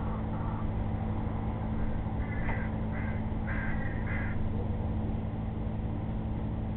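Four short calls from a bird about two to four seconds in, over a steady low hum and hiss.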